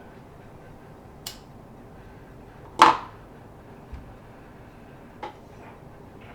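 A few sharp clicks and knocks: a light click, then a much louder knock about three seconds in, a dull thump and another click.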